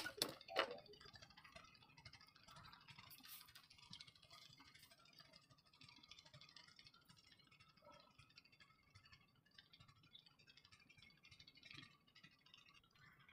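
Near silence, with a couple of sharp clicks in the first second and faint scattered ticks after.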